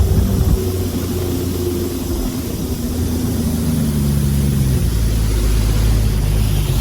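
Jet-drive boat engine running under way, its pitch easing down over the first few seconds and then holding steady.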